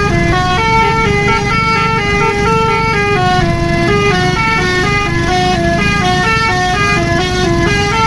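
Bus telolet horn, a Basuri-type multi-tone musical horn, playing a quick melody of stepped notes, each held a fraction of a second, over a low engine rumble.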